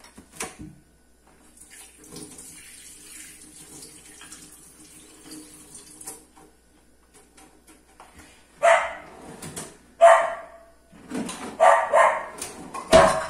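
Kitchen tap running water over an onion being rinsed at the sink. Then a dog barks repeatedly, about one bark a second, louder than the water.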